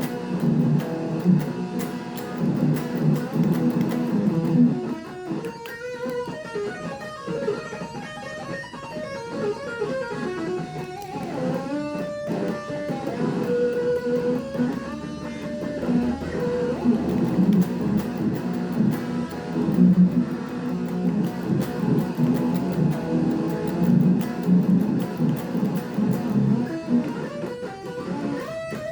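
Ibanez RG electric guitar played through a Zoom G3Xn multi-effects unit: low chords for the first few seconds, then a lead melody with sliding, bent and held notes, and chords again toward the end.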